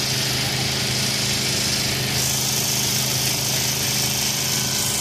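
A running engine: a steady, unchanging low mechanical hum with a hiss over it.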